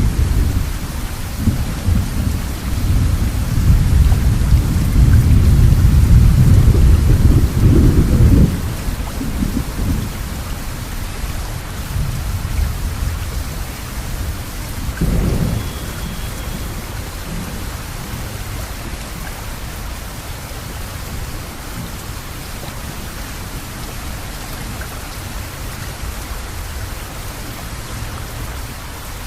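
Steady rain falling through a thunderstorm. A long, loud roll of thunder rumbles for the first eight seconds or so and dies away, and a shorter rumble of thunder comes about fifteen seconds in.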